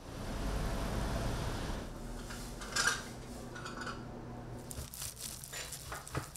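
Food-prep handling sounds in a small kitchen: a low steady hum, then a couple of brief clatters and scattered light rustling and clicking.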